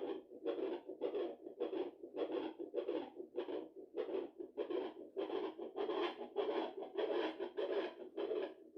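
Fetal heartbeat through a handheld fetal Doppler's speaker: an even, whooshing pulse of about two and a half beats a second (around 140 a minute), a rate typical of a fetal heart.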